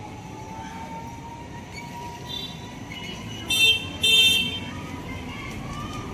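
Vehicle horn sounding two short toots in quick succession about three and a half seconds in, over a steady street hum.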